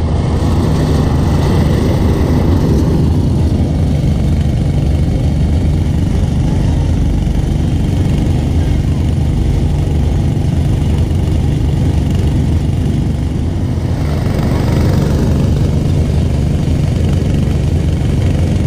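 Small engine on a sugarcane juice machine running steadily, turning the crushing rollers as cane stalks are fed through.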